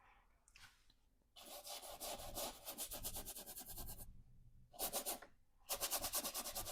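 Paintbrush scrubbing oil paint onto canvas in rapid back-and-forth strokes, in three spells: a long one starting about a second and a half in, a short one near five seconds, and another near the end.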